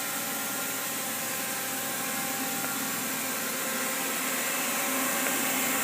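Steady machine-shop background noise: an even hiss with faint steady hum tones, getting slightly louder toward the end.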